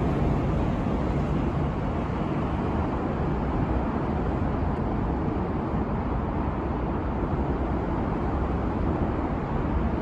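Steady low rumble of road traffic passing on an elevated highway overhead.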